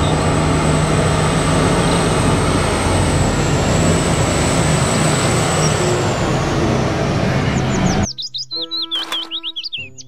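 BelAZ 75710 diesel-electric mining dump truck driving past, a loud steady engine and drive noise with a low hum and a faint high whine. About eight seconds in it cuts off suddenly and is followed by a quick run of high chirping sounds.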